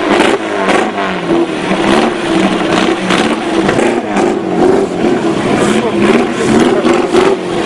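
Engine of a chopped VW Beetle rat rod running and being revved up and down over and over as the car rolls away.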